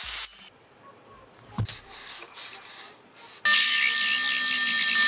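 MIG welding crackle that stops about half a second in. About three and a half seconds in, a drill press starts boring a twist drill into a steel hex piece held in a vise: a loud, steady machine sound with a constant high whine.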